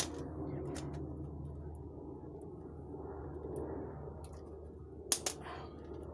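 Small sharp clicks as a 3D-printed resin bullet mold held in plier-style handles is adjusted to line up its sprue plate, with two clicks close together about five seconds in, over a steady low hum.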